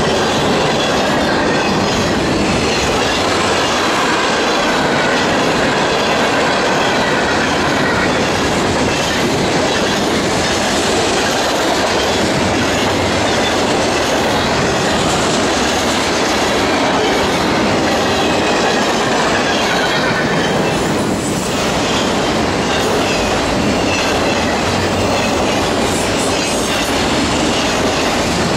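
A freight train's cars, covered hoppers and tank cars, rolling past close by: a loud, steady rumble and rattle of steel wheels on rail, with faint wheel squeal.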